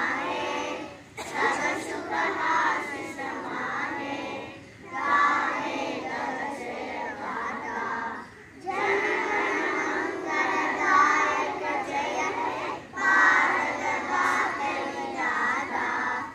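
A group of young children singing a prayer together in unison, in phrases of a few seconds each with brief pauses for breath between them.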